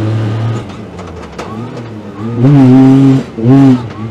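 Side-by-side off-road buggy's engine, heard from inside the open cockpit: it eases off about half a second in, a few sharp ticks come through, then it revs up and back down twice in the second half.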